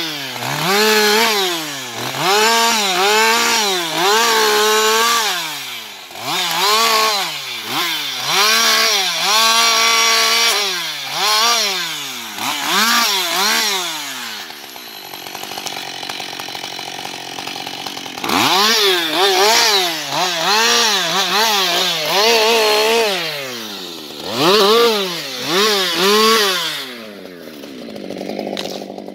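Husqvarna 560 XP two-stroke chainsaw cutting fallen logs and branches: the engine revs up to full speed for each short cut and drops back between cuts, a dozen or so times in quick succession. It settles to a lower, steadier running for a few seconds midway and again near the end.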